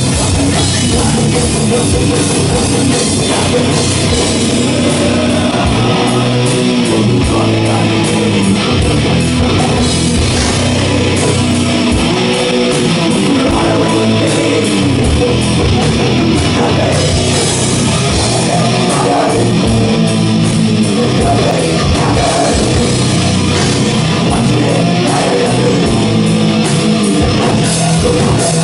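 Live extreme metal band playing: distorted electric guitars and drum kit, loud and unbroken.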